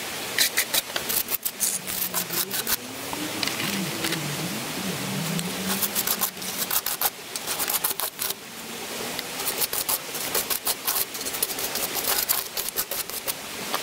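Small steel trowel scraping wet mortar off a perforated metal board and pressing it into the joints of hollow clay bricks: irregular scrapes and sharp clicks. A faint wavering hum joins in a few seconds in and fades out about halfway.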